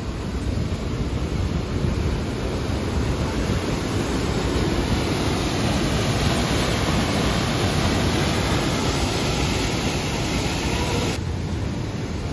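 Rushing whitewater far down in a deep, narrow rock canyon: a loud, steady rush of noise with no let-up.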